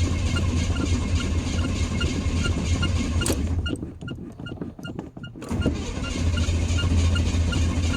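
Long-sat truck engine idling with a light regular tick about twice a second. About halfway through, the sound cuts off sharply for a second or two and then comes back.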